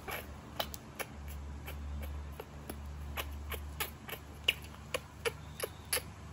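Baby monkey's mouth clicking and smacking as it feeds, in irregular soft clicks a few a second, a few of them sharper.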